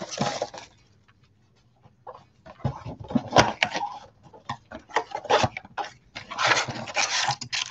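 Paper and foil trading card packaging rustling and crinkling as a 2020 Panini Mosaic NFL card box is opened and its packs handled, in several irregular bursts.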